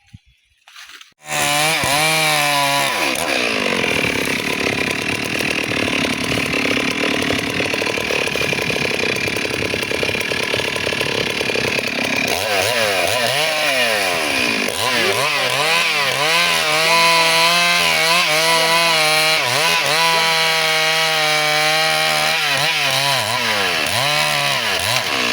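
Chainsaw starting up loud about a second in and cutting teak wood, its engine pitch repeatedly rising and falling as it revs and bogs in the cut.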